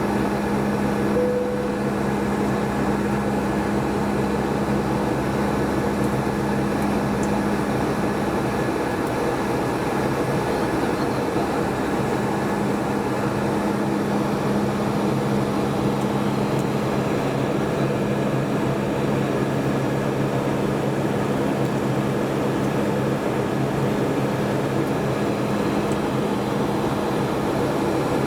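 Steady airliner cabin noise inside a Boeing 757 in flight: the Rolls-Royce RB211 engines and airflow make a constant hum with several steady tones.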